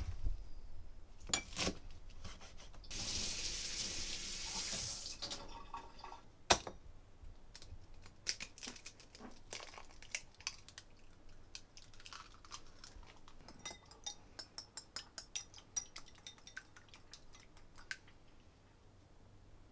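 Kitchen food prep: a knife chopping yellow chives on a bamboo cutting board, a couple of seconds of running water, eggs cracked on the rim of a porcelain bowl, then a wire whisk beating the eggs, ticking against the bowl about five times a second.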